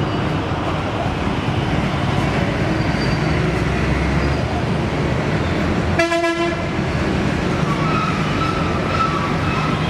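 Steady rumble of motor traffic with one vehicle horn sounding about six seconds in, lasting under a second.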